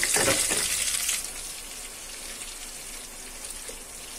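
Sliced onion sizzling in hot oil and ghee in a frying pan. The sizzle is loud for about the first second, then drops to a quieter, steady sizzle.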